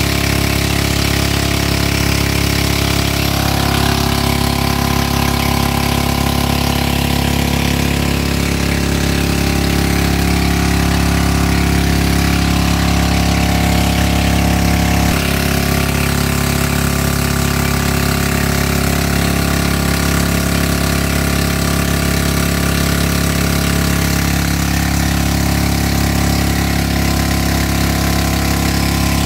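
Motorboat engine running steadily while towing a raft, its tone holding even with a slight step about halfway through.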